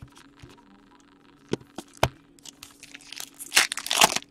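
Foil wrapper of a Panini Titanium hockey card pack being torn open by hand, crinkling loudest near the end, after a couple of sharp clicks.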